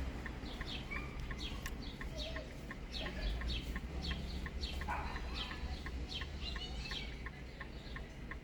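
Birds chirping over and over, short falling calls several a second, over a faint, evenly spaced ticking.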